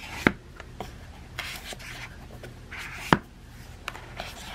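Candle jars being handled in a cardboard gift box: two sharp knocks, one just after the start and one about three seconds in, with soft rubbing and rustling between them.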